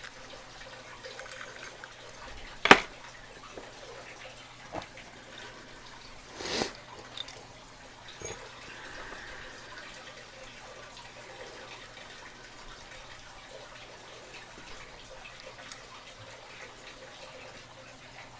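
Padlocks and lock-picking tools being handled: a few scattered light clicks and knocks, the loudest about three seconds in, with a short scraping rustle a few seconds later, over low room noise.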